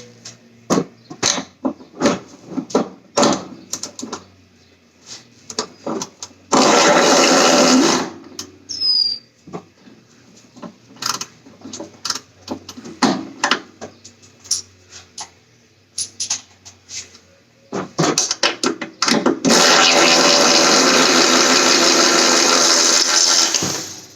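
A power tool runs twice: briefly about six seconds in, then for about five seconds near the end. Between the runs there are many scattered metallic clicks and knocks of work on suspension parts.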